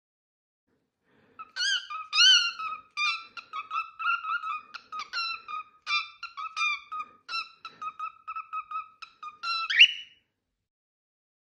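Pet bird calling: a run of short, shrill, repeated calls, about two to three a second, starting a second and a half in and ending with one rising call.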